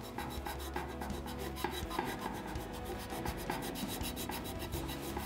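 An orange cleaning-eraser block scrubbed quickly back and forth on a frying pan, giving an even, rhythmic rasping rub as it works at burnt-on crust.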